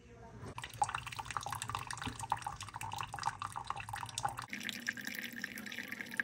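Keurig single-serve coffee maker brewing: a thin stream of coffee pouring and splashing into a ceramic mug, starting about half a second in. About four and a half seconds in, the sound changes abruptly.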